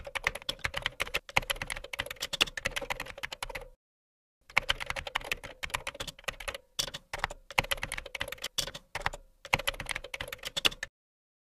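Computer keyboard typing sound effect for text being typed out on screen: fast runs of keystrokes, with a brief pause about four seconds in and a stop shortly before the end.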